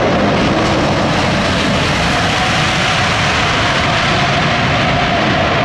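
Engines of a large Airbus display aircraft flying past low, a loud, steady rushing noise with a whining tone held through it.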